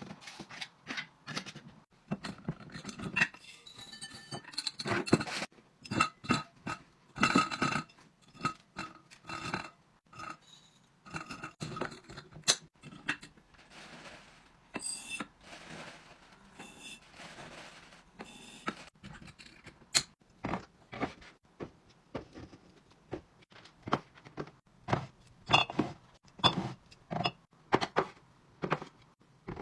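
Packaged food and drink containers being handled and set down while restocking a fridge and pantry: irregular clinks, taps and scrapes, a few with a brief glassy ring.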